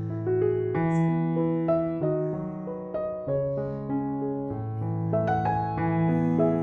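Soft background piano music, a gentle melody over sustained chords.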